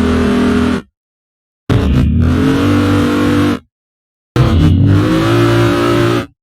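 Sound-design samples from the Detonator Rage Kontakt library, played one at a time: a noisy, engine-like tone that glides upward in pitch over a low hum. One ends just under a second in, and two more follow, each about two seconds long and cut off abruptly, with short silences between.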